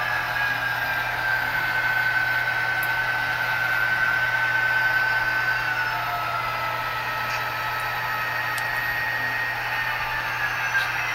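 HO scale sound-equipped diesel locomotive running, its sound decoder playing a diesel engine sound through a small onboard speaker, over the rumble of model freight cars rolling on the track. A high whine slides slowly lower over the first half, and a few faint clicks come near the end.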